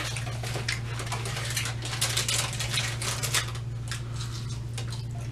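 Cardboard takeout box and its paper liner rustling and crinkling as they are handled, a quick irregular run of crackles and light taps, over a steady low hum.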